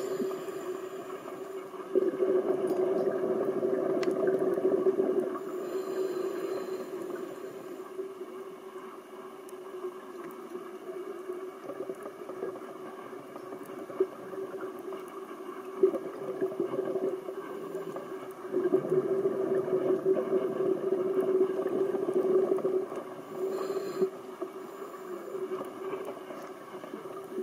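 Underwater sound on a scuba dive: a steady droning hum carried through the water, with louder rushes of a diver's exhaled regulator bubbles about two seconds in and again from about eighteen seconds.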